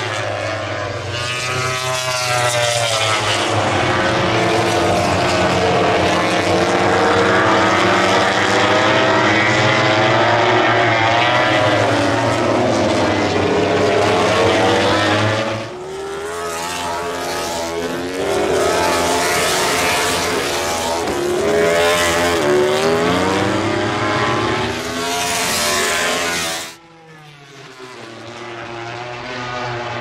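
Aprilia RS-GP MotoGP bike's big-bang V4 engine running hard past the track edge, loud, its revs rising and falling through gear changes. The sound breaks off sharply about halfway through and again near the end, and each time another pass builds up.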